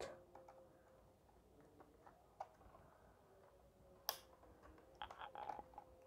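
Near silence with a few faint clicks and taps as fingers handle a laptop RAM module and its retaining clips, with one sharper click about four seconds in.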